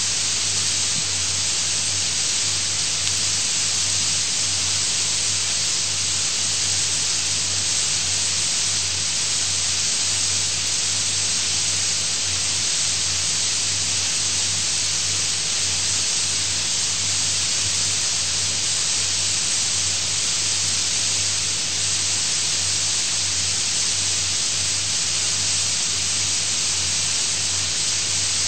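Steady hiss of recording noise, strongest in the high range, with a low steady hum underneath; it does not change at all, and there is no speech.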